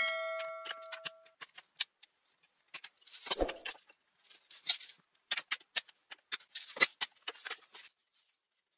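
Wood crackling and snapping as the thin strips left between saw cuts in a wooden block are broken off with locking pliers. It is a run of sharp clicks and cracks with a few louder snaps, opening with a metallic ring about a second long.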